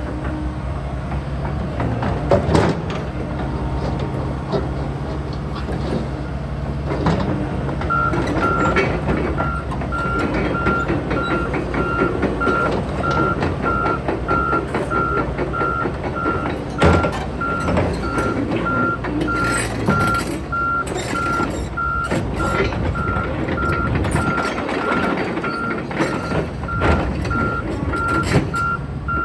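Volvo EC160DL excavator's diesel engine running under working load, with scattered knocks and clanks. From about eight seconds in, a motion alarm beeps in a steady repeated pattern as the machine moves.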